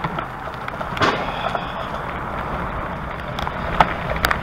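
Bikepacking bicycle rolling along a trail: a steady rush of tyre noise with a few sharp rattles, near 1 s, 4 s and just before the end.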